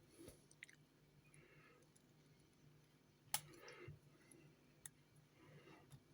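Faint clicks and rustles of wire and small hand tools being handled while solid-core wire is fitted to a turret board. One sharper click comes a little past halfway, over a low steady hum.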